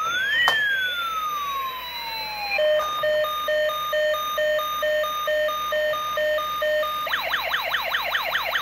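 Toy ambulance's electronic siren: one slow rise-and-fall sweep, then a pulsing two-tone pattern from about three seconds in, switching near the end to a fast warbling yelp.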